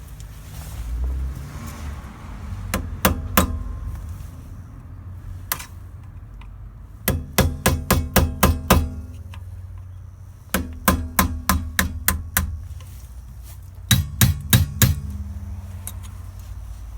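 Hammer blows on metal at a car's rear wheel hub: a couple of single strikes, then three fast runs of six to eight blows each, every run leaving a short metallic ring.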